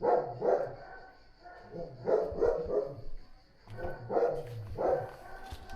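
A dog barking repeatedly, in short runs of one to three barks about every two seconds.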